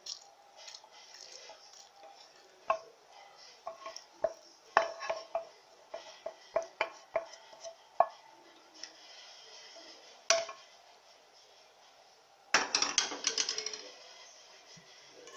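A utensil clicking and knocking against an aluminium cake tin as freshly poured caramel is spread over its base, a dozen or so separate sharp taps. About twelve and a half seconds in, a short burst of clattering as the tin is handled and swirled.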